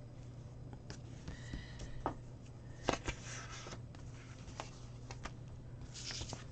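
Quiet paper handling: a flag sticker peeled and pressed onto a planner page, with scattered light taps and rustles over a low steady hum.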